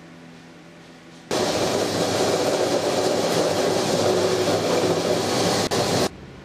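A drill press runs, its bit boring a row of eyelet holes through a kydex sheet. The steady motor-and-cutting noise starts abruptly about a second in, dips briefly, and cuts off about a second before the end.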